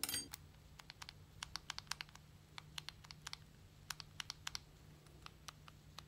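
Small metal parts and hand tools handled at a workbench vise: a sharp metallic clink with brief ringing at the start, then a scatter of light, irregular clicks.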